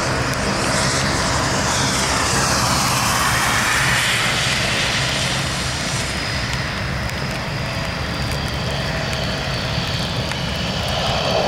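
Airbus A320 jet engines at takeoff thrust as the airliner climbs away, a steady roar. A hollow sweep in pitch passes through the roar, strongest about four seconds in.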